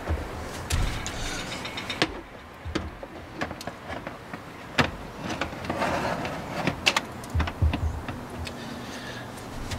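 Scattered metal clinks, knocks and scrapes as a wire cooking rack is handled and slid along the rails of a Masterbuilt digital electric smoker's cabinet.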